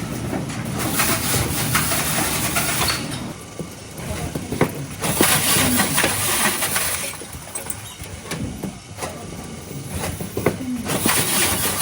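Automatic ice-box taping machine running: a steady machine hum with a loud hissing rasp about every five seconds, typical of tape being pulled off and pressed onto a styrofoam box as it passes through. Scattered clicks and knocks run between the rasps.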